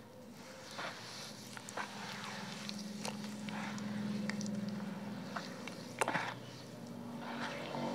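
Hand squishing and crumbling wet cement in water in a plastic basin: wet squelches, sloshing and gritty crackles, with a sharper splash about six seconds in. A low steady hum sits underneath, louder in the middle and again near the end.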